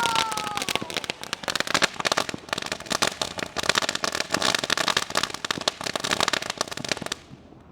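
Consumer ground firework, the Pink Diamonds, crackling in a dense rapid stream, then stopping abruptly about seven seconds in as it burns out.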